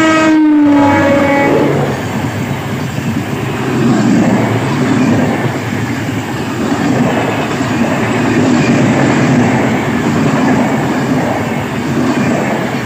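Indian Railways electric locomotive passing close by with its horn blowing; the horn's pitch drops as it goes by and the horn ends within about two seconds. Then comes the loud, steady rumble and wheel clatter of passenger coaches rushing past.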